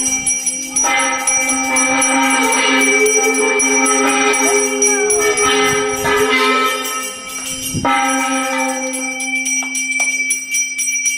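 Bells ringing steadily, their tones sustained over a steady low hum, with two louder strikes about a second in and just before eight seconds.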